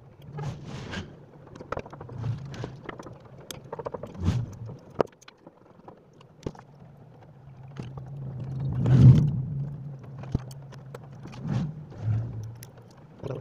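Light clicks and scrapes of a blender's removed motor and its metal parts being handled and turned over. A low hum swells to a peak about nine seconds in and then fades.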